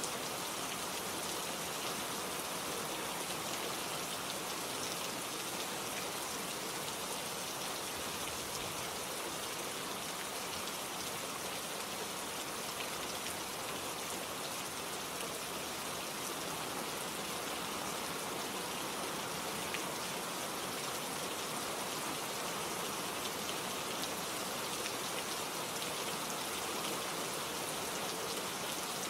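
Steady rain falling, with the even hiss of the downpour and scattered drops pattering on a surface.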